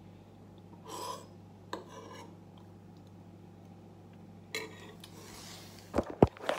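A metal spoon scraping and clinking in a ceramic soup bowl during eating. Near the end come a few loud knocks and rubbing as a hand grabs the phone that is recording.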